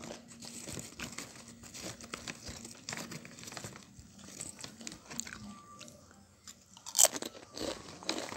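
Roasted corn tortilla chips crunching as a hand rummages through the plastic chip bag, in irregular crackles with the loudest crunch about seven seconds in.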